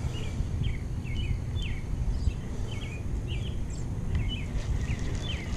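Small birds chirping, short calls about twice a second, over a steady low rumble of wind on the microphone.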